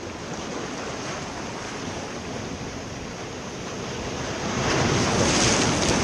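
Ocean surf washing onto a rocky shore, swelling louder about four and a half seconds in as a wave comes in, with wind on the microphone.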